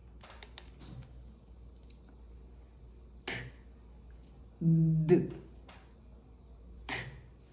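A woman making isolated consonant sounds close to a handheld microphone: a short voiceless "t" puff about three seconds in, then a voiced "d" whose buzz of vocal-fold vibration is held for about half a second before the release, and another "t" near the end. A few light clicks of the microphone being handled come first.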